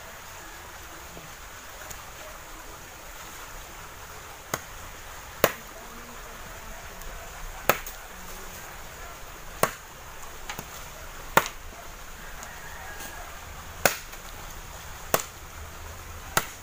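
Machete (bolo) chopping thin branches into firewood on the ground: sharp single strikes, about eight of them, every two seconds or so, starting about four seconds in.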